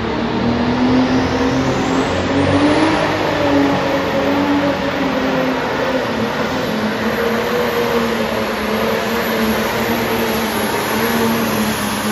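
Blue Ford pulling tractor's engine at full throttle, dragging the weight-transfer sled down the track, with a high whine that climbs steeply over the first two seconds and then holds.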